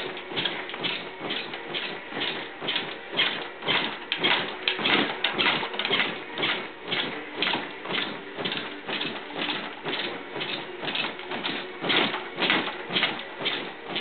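Wooden crib rattling and knocking in an even rhythm, about two to three beats a second, as a toddler bounces while gripping the top rail.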